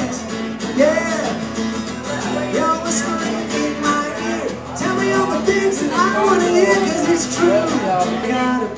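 A man singing live into a microphone while strumming an acoustic guitar.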